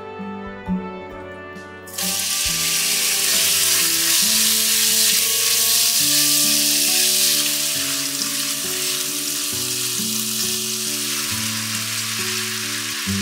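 Sliced raw meat sizzling in hot oil in a nonstick frying pan. The sizzle starts suddenly about two seconds in, as the meat goes into the hot oil, and keeps on steadily while it is stirred, with background music under it.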